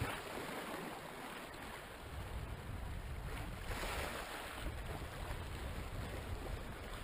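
Sea water washing against the rocks, an even hiss, with a low rumble of wind on the microphone from about two seconds in.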